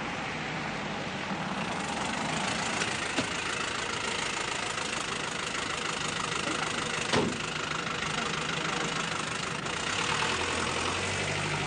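A car's engine running under a steady hiss of traffic, with a car door shutting once about seven seconds in.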